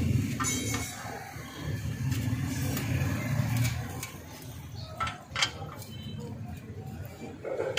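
A T-handle socket wrench tightening the nuts on a motorcycle silencer's steel mounting bracket, giving a few sharp metal clinks around five seconds in. A low steady hum runs underneath and fades about halfway through.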